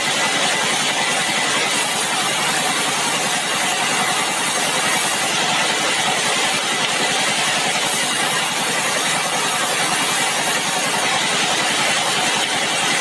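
Sawmill machinery running steadily, a continuous loud mechanical noise with a slow swell in its hiss every few seconds.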